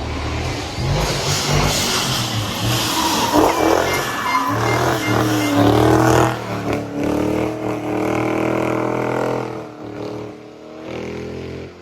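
Rally car going past at full throttle, its engine revving hard, loudest in the first half and dying away after about nine seconds.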